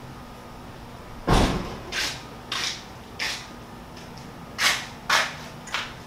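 Off-screen hands rummaging through and handling tools: one heavy thump about a second in, then six shorter clattering knocks and scrapes.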